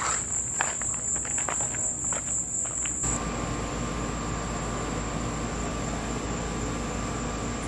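Night crickets trilling steadily, with a few soft knocks. About three seconds in, this cuts abruptly to a steady hum and hiss with a faint thin whine: indoor room tone.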